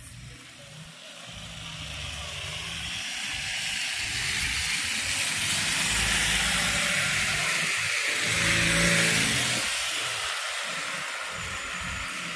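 A car driving past on a snowy street, its tyres hissing in the snow. The sound swells over several seconds, is nearest about three-quarters of the way through with a short hum of the engine, then fades.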